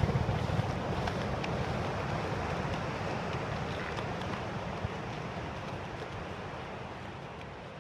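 Steady coastal ambience of surf and wind, a rushing noise heaviest in the low end, slowly fading out near the end.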